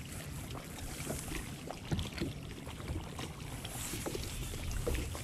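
Small waves lapping against a boat hull, with light wind on the microphone and faint scattered small clicks.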